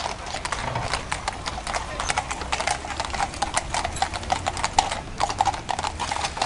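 Shod hooves of a team of coach horses clip-clopping on a hard road as the horse-drawn coach passes, many hoofbeats overlapping in an uneven patter.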